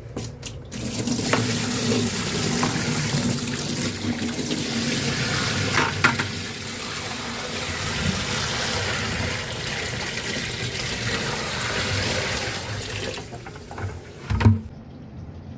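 A bucket of spent vinegar flush water being poured out down a drain: a steady rush of pouring water that stops about two seconds before the end. A few clicks come just before the pour, and a dull knock follows shortly after it.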